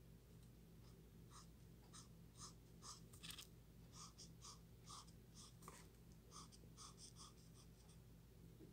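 Faint strokes of an alcohol marker's felt nib on paper, short squeaky scratches about twice a second as black stripes are drawn in. A low steady hum runs underneath.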